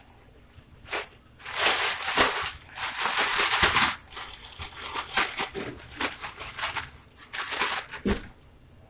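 Plastic bag crinkling and rustling as chicken wings are shaken in a seasoned flour mixture inside it, in three bursts of shaking with a few dull thuds.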